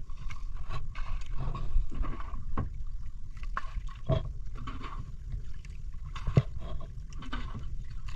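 Outrigger boat under way on choppy sea: water slapping and splashing against the hull at irregular intervals over a steady low rumble.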